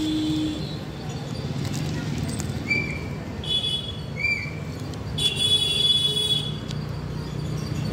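Street ambience: a steady low traffic rumble, with a few short high-pitched tones. The longest comes a little after the midpoint and lasts about a second.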